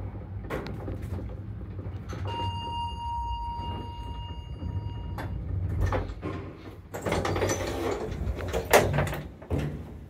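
Passenger lift built in 2008, a low steady running hum, then a steady electronic beep lasting about three seconds. Near the end, its automatic sliding doors run along their track, with a sharp knock as they stop.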